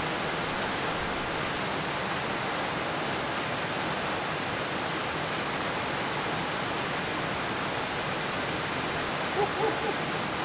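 Waterfall and rocky stream rushing in a steady, unbroken roar of water.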